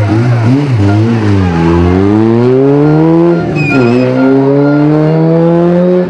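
Peugeot 106 race car engine under hard acceleration: the revs waver for the first second and a half, climb steadily, drop with a quick upshift about three and a half seconds in, then climb again.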